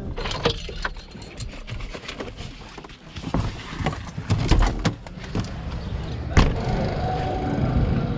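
Clicks and knocks of someone getting out of a parked van: handling in the cab, the door opening, and a sharp bang about six seconds in as it shuts. Street traffic follows.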